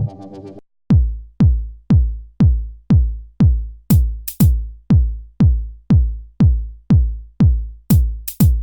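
Electronic dance music: a synth chord cuts off, and about a second later a steady kick-drum beat starts at about two beats a second, with a few sharp hi-hat or clap hits.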